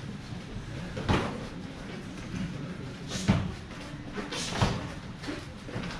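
Punches and kicks landing during full-contact Kyokushin karate sparring: dull thuds of blows on bodies, with three sharper hits about a second in, just past three seconds and past four and a half seconds.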